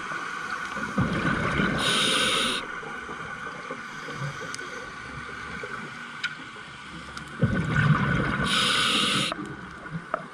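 Scuba diver breathing through a regulator underwater. Twice, a bubbling rumble of exhaled air is followed by the short hiss of an inhalation: once about a second in, and again after about seven and a half seconds.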